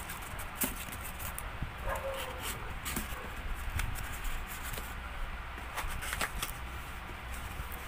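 Cardboard pizza box being handled and opened out by hand: scattered rustles, scrapes and sharp clicks of cardboard.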